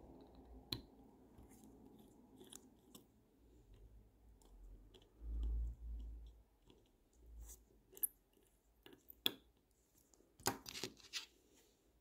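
Faint, scattered clicks and ticks of a fine watchmaker's screwdriver and tweezers on the steel bridge screws and plate of a Seagull ST36 watch movement as the screws are undone and lifted out. There is a dull low thump near the middle and a quick run of clicks near the end.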